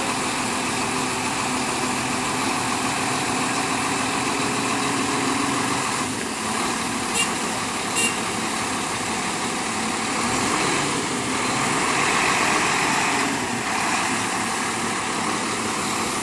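A motor vehicle's engine running steadily, with a low hum in the first six seconds or so and two short clicks about seven and eight seconds in.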